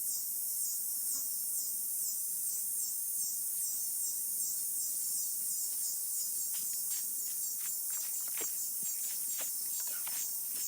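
Evening insect chorus of crickets, a high pulsing trill at about three pulses a second. From about halfway through, a run of short crackling clicks and rustles, like steps and handling among the garden vines.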